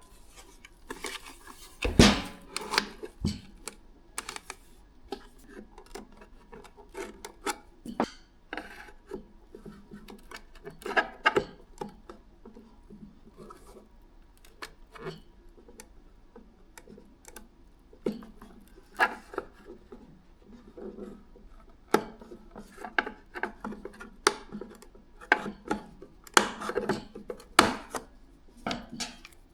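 Hands working on car parts with tools: irregular clicks, light knocks and rubbing, like plastic trim and small metal tools being handled. The sharpest knock comes about two seconds in.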